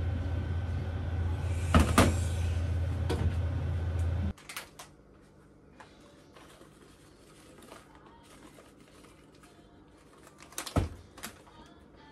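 A steady low hum with a few sharp knocks of dishes being handled. The hum cuts off abruptly about four seconds in, leaving light taps and one sharp knock near the end as a small metal tea strainer of powdered sugar is handled over a bowl.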